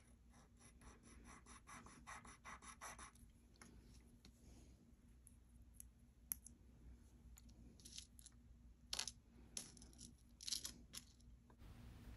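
Faint quick scratching strokes, about seven a second for roughly three seconds, as a piece of jewelry is rubbed on a metal-testing stone, followed by a few scattered light clicks and taps.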